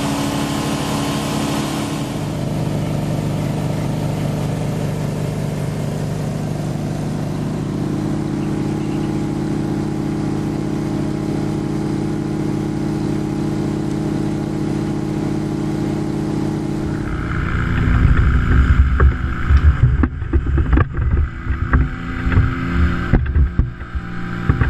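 An engine running steadily at constant speed, its pitch holding level with small shifts about 2 and 8 seconds in. From about two-thirds of the way through, louder uneven low rumbling covers it.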